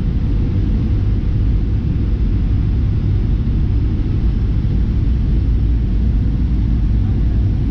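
Steady rumble of a Boeing 737-800's CFM56 jet engines and airflow heard inside the passenger cabin, a deep, even roar with a faint steady hum above it.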